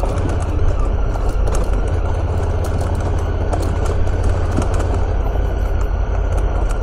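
Honda Africa Twin's parallel-twin engine running steadily as the motorcycle rides down a gravel track, with scattered clicks of gravel under the tyres.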